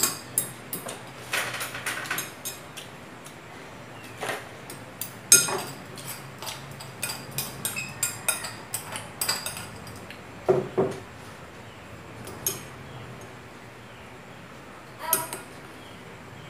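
Stainless-steel chopsticks and a spoon clinking and scraping against a glass bowl of rice: a string of short sharp clicks, frequent through the first ten seconds, then only a few near the end.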